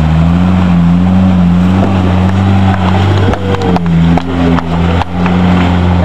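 Four-wheel-drive wagon's engine running under load as it drives through a river crossing and climbs out, its pitch rising and falling with the throttle over a splashing wash of water. A few sharp knocks come between about three and five seconds in.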